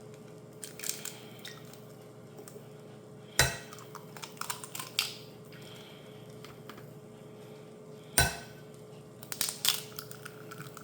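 Eggs being cracked on a bowl: two sharp knocks about five seconds apart, each followed by lighter clicks and crackles as the shell is pulled open.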